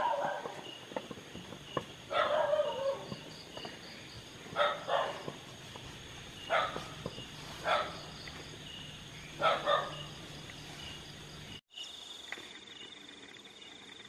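A dog barking repeatedly, about six short barks, some coming in pairs, over a steady high chorus of night insects.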